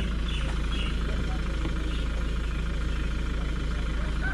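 Motor vehicle engine running with a steady low drone.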